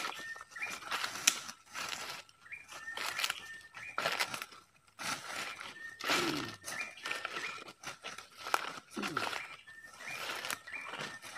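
Footsteps crunching and rustling through dry leaf litter and undergrowth, in irregular steps. A short high stepped chirp recurs every few seconds in the background.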